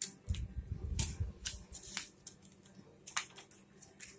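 Plastic Lego bricks clicking and rattling as they are handled and pressed together, in irregular sharp clicks with a few soft knocks on the table.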